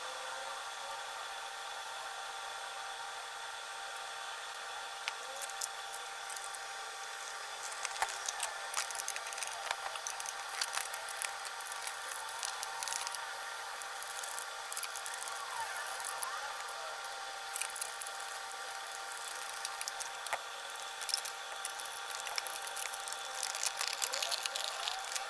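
Scattered small clicks, taps and rattles of hand tools and plastic parts during electric fan repair, starting about five seconds in and growing busier near the end, over a steady hiss with faint steady tones.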